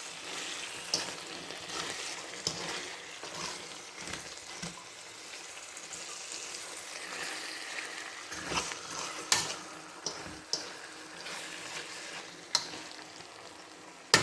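Food sizzling in a hot frying pan, a steady hiss, with a few sharp clicks and knocks of a utensil stirring in the pan. The pan holds ackee sautéing with onion and black pepper, with chicken just added.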